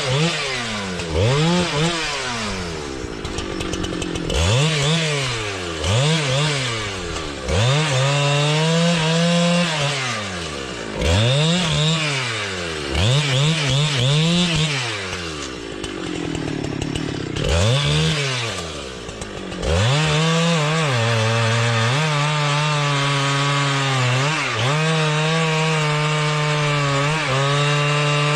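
Chainsaw engine revved again and again, its pitch rising and falling every second or two, with short drops to idle. From about two-thirds of the way in it holds a steady high speed with slight dips, as when the chain is cutting through a log.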